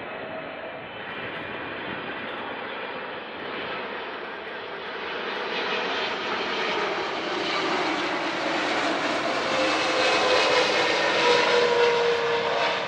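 Jet airliner's engines on final approach, growing steadily louder as it nears, with a steady whine that falls slightly in pitch near the end as the aircraft passes.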